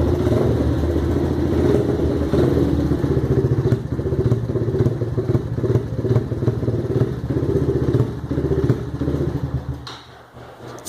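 Suzuki Intruder 125's single-cylinder four-stroke engine running through an exhaust modified for a deep rumbling note, then cutting off near the end.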